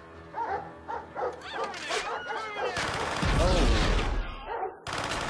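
Dogs barking and yelping on a film soundtrack, the barks coming quickly one after another. About three seconds in, a loud, deep rumble rises under them, and a sudden loud burst breaks in near the end.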